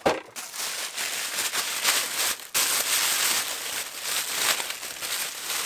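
Plastic packaging rustling and crinkling continuously as a model part is unwrapped by hand.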